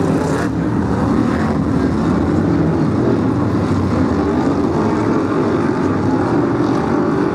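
Several Brisca F1 stock cars' V8 engines racing round the oval. The engine noise is loud and steady, with no break.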